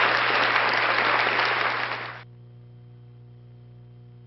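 Audience applause that cuts off abruptly about two seconds in, leaving only a faint steady electrical hum.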